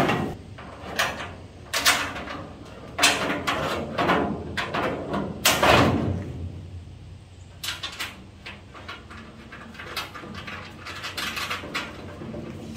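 A sheet-metal inner wheel tub being worked into a Ford Bronco's wheel opening: irregular clunks, knocks and scrapes of panel against panel as it is pushed and shifted into place, the loudest knock about halfway through.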